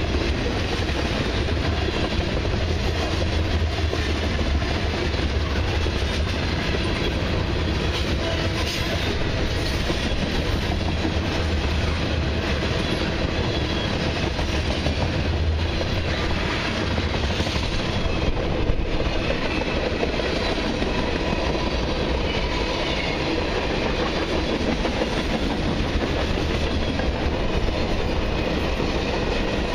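Long mixed freight train rolling past: a steady rumble of wheels on rail with a clickety-clack of the cars' wheels going over the rail joints.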